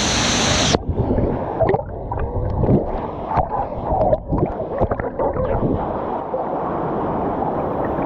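Waterfall pouring into a pool, loud and hissing for the first moment, then muffled as the camera goes underwater under a second in: a dull rushing churn with bubbles crackling and popping.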